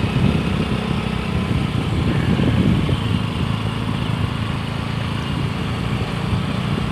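Vehicle engine running steadily as the vehicle moves along a road, a constant low rumble.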